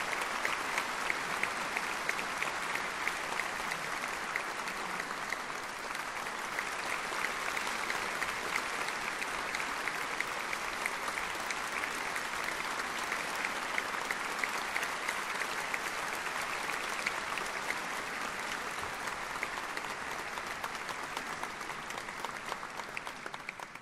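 Large audience applauding steadily, a dense even clapping that fades out near the end.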